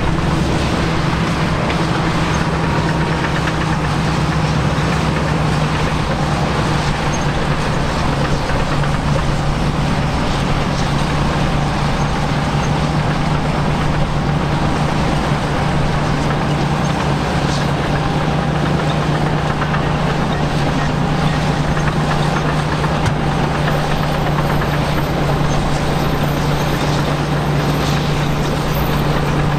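Caterpillar D8K crawler dozers' diesel engines running with a steady, continuous low drone.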